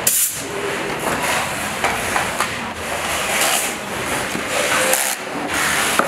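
Assembly-line workshop noise: a steady rushing hiss with a few brief, sharper hissing bursts, at the very start, about three and a half seconds in and about five seconds in.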